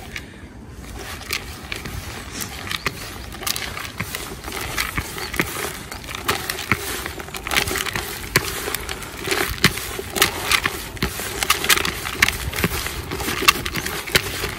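Hands working cold carp-fishing dango bait: a dense run of small crackling clicks and rustles, getting busier about halfway through.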